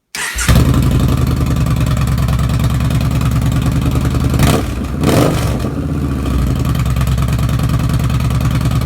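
Yamaha Bolt's air-cooled V-twin comes in suddenly right at the start and runs loud through a short GP Shorty aftermarket exhaust with an even, lumpy beat. It is blipped twice in quick succession about halfway through, then settles back to idle.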